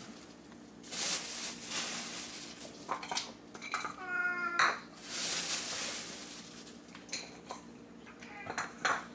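Cat eating dry kibble from a bowl: crunching, with sharp clicks of food and teeth against the bowl. About four seconds in, a short meow.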